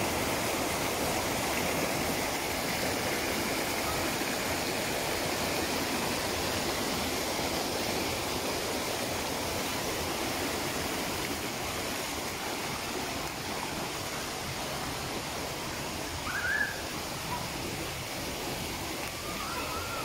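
Water of a small forest stream rushing over rocks and little cascades: a steady rushing noise that eases a little partway through. About three-quarters of the way in, a short high-pitched rising sound stands out above it.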